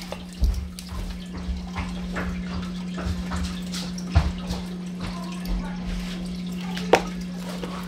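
Steady low hum and trickle of an aquarium filter running, with faint scraping of a metal spoon in ground venison and a sharp click about seven seconds in.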